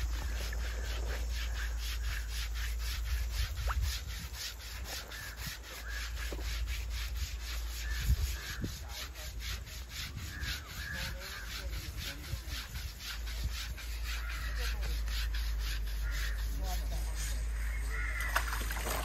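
A wet elephant's hide being scrubbed by hand in quick, even rasping strokes, which stop near the end.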